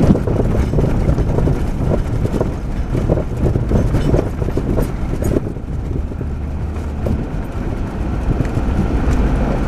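Cabin noise of a 1998 Jeep Grand Cherokee 5.9 driving a rough dirt road: a continuous low rumble of engine and tyres with frequent jolts and rattles over bumps, settling into a steadier rumble about halfway through.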